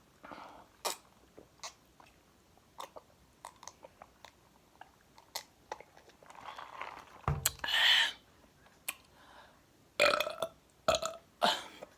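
Close-up eating sounds of chicken wings being chewed, with small wet mouth clicks and smacks. A short burp about seven seconds in.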